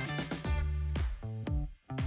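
Background music: an upbeat track with guitar, a steady bass line and a regular beat.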